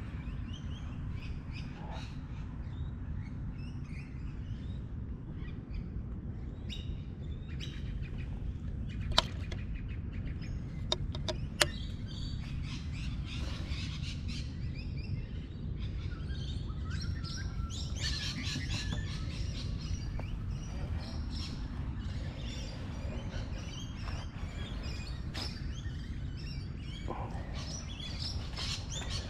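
Birds chirping and calling over a steady low background rumble, busiest a little past the middle. Three sharp clicks stand out about a third of the way in.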